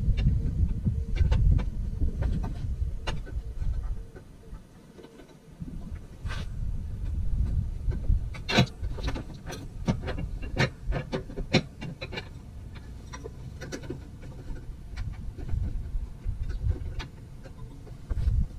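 Irregular metallic clinks and taps of hand tools and fasteners being worked by hand deep in a car's engine bay, thickest in the middle of the stretch, over a low background rumble.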